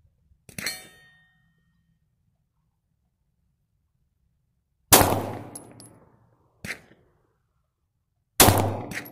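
Walther PPS 9mm pistol firing factory 115-grain full metal jacket rounds: two loud shots about three and a half seconds apart, each with a long decaying tail, and a shorter, quieter crack between them. A brief metallic clink comes about half a second in.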